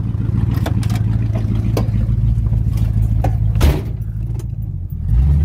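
1970 Buick Riviera's 455 V8 idling with a lumpy exhaust note while the driver's door latch clicks open, the door is shut with a knock about three and a half seconds in, and about five seconds in the engine note turns louder and deeper.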